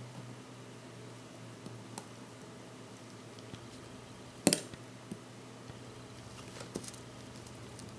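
A few small, sharp clicks of metal tools and tiny parts being handled at a watchmaker's bench, the loudest about halfway through, over a steady low hum.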